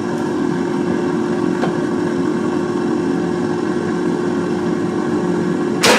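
Proscenic T21 air fryer running, its fan making a steady hum with a constant tone. Near the end the basket drawer is pulled open with a sharp clunk, which stops the fan.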